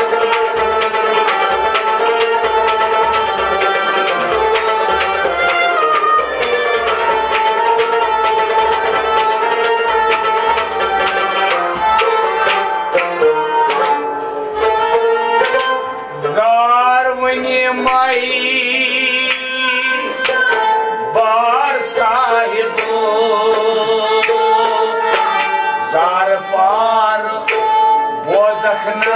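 Sufi devotional music: harmonium and a bowed string instrument play a held, droning melody over a steady hand-drum beat. About halfway through, a man's voice comes in singing, with a few more sung phrases near the end.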